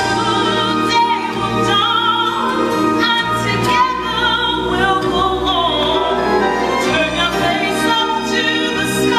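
A woman singing long held notes with a wide vibrato over accompanying music.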